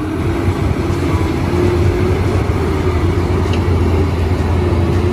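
Loaded heavy dump truck's diesel engine running as it drives, a steady low drone with a held engine note.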